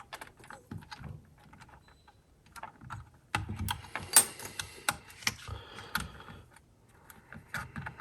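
Hands routing the CPU water block's RGB cable around a motherboard: scattered light clicks and rustles of cable and plastic parts being handled, busiest for a few seconds in the middle.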